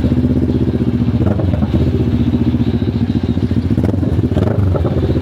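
CFMoto 650NK parallel-twin engine running steadily through an SC Project aftermarket exhaust, with a fast, even exhaust pulse.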